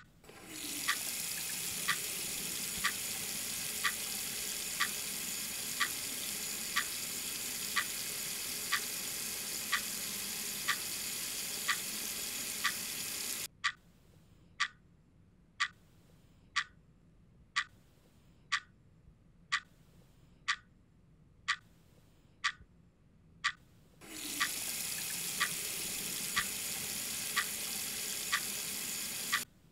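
Bathroom sink tap running into the basin, turned on at the start and shut off about halfway, then turned on again for hand washing and shut off near the end. Throughout, a sharp tick sounds about once a second, the loudest thing whenever the water is off.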